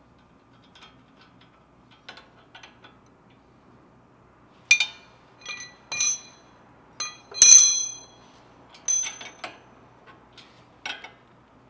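Steel suspension hardware and a wrench clinking together by hand: several sharp metallic clinks, each with a short ring, beginning about five seconds in, the loudest about seven and a half seconds in, with a few faint ticks before them.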